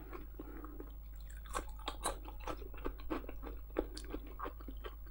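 A person biting into and chewing a slice of fresh cucumber: a run of irregular crisp crunches, starting about a second and a half in.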